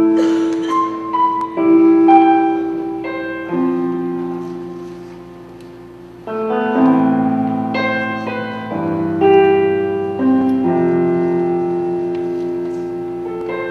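Piano playing slow chords: each chord is struck and left to ring and fade, with a new one about every two seconds and a few higher notes over them.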